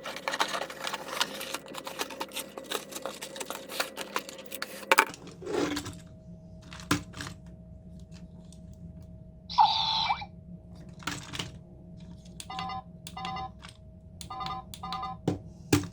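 Dense rapid clicking and rustling for about five seconds. Then a steady faint electronic hum with scattered clicks, from a remote-control toy robot being handled and switched on. One longer electronic tone comes just before ten seconds, then a run of short electronic beeps near the end.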